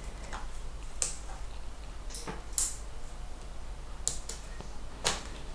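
About half a dozen faint, scattered clicks and taps from hands handling the plastic underside of a Sony Vaio laptop.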